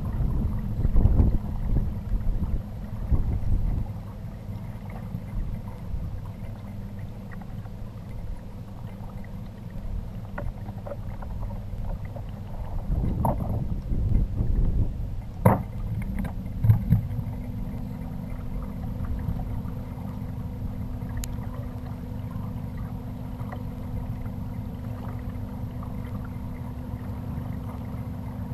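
Kayak under way on calm water: a low rush of water and wind on the mounted camera's microphone, with a faint steady hum that steps up slightly in pitch about two-thirds of the way in. Several sharp knocks and clunks of gear on the hull come in the middle.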